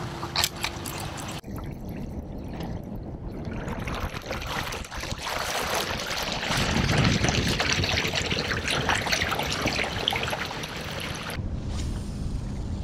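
Water rushing and splashing along the hull of an inflatable fishing kayak moving through the river, loudest in the middle. The sound changes abruptly about a second and a half in and again near the end.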